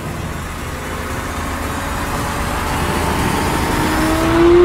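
A car approaching at speed along a road, its tyre and engine noise growing steadily louder, with the engine note becoming clear and rising in pitch near the end as it closes in.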